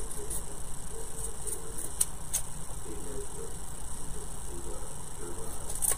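Steady low background hum with a couple of faint clicks from small wooden craft pieces being handled, about two seconds in.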